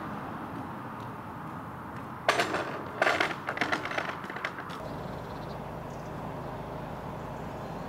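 Wooden level-crossing gate swung shut across the road and latched: a knock about two seconds in, then a louder bang and a rattling clatter of wood and metal fittings for about a second and a half.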